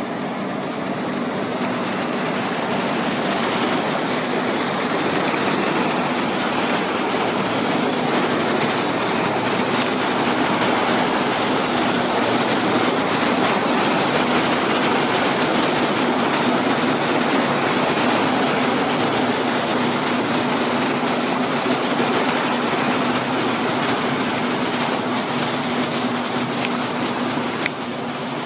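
Motorboat engine running steadily with a constant hum, under a rush of water and wind noise from travelling across the water. The sound dips slightly near the end.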